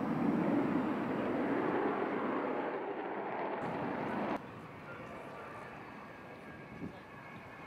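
Avro Vulcan's four Olympus turbojets: a loud, broad jet roar as the bomber climbs away. About four seconds in it drops suddenly to fainter jet noise with a faint whine.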